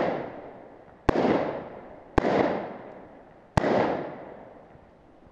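AR-15 pistol firing slow, single shots, three spaced a second or so apart and a fourth right at the end. Each sharp crack is followed by a long echo that dies away over about a second and a half.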